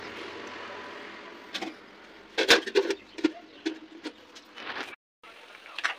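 Metal pan lid clinking and knocking against the rim of a cooking pan as it is handled and set on, several sharp clinks with a short ring, the loudest about halfway through. Before that, a steady low hiss, as of cabbage curry simmering.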